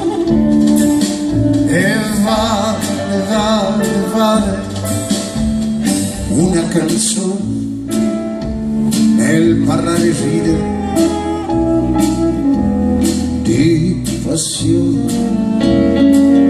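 Live band music: a male voice singing over acoustic guitar, double bass, keyboard and drums, with a saxophone, to a steady beat.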